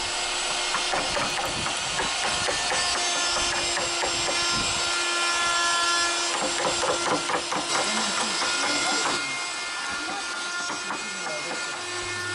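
Wooden mallets striking steel carving chisels into walnut in quick, irregular taps, with more than one carver working at once.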